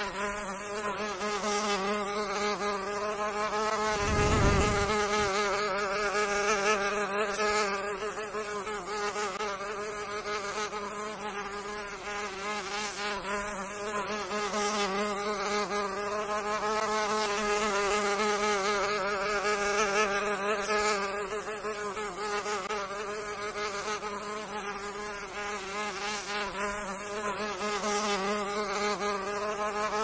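Mosquito in flight, its wingbeats making a steady whining buzz whose pitch wavers slightly. A brief low rumble comes about four seconds in.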